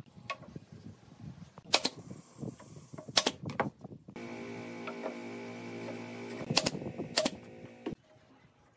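Pneumatic brad nailer firing four sharp shots into pine, with knocks of wood being handled between them. From about four seconds in, a steady machine hum runs under the shots and cuts off suddenly near the end.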